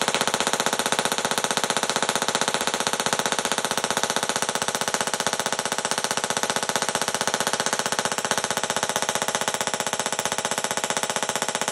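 Handheld mini Tesla coil sparking without a break, a loud, steady, rapid buzzing crackle of electrical discharge.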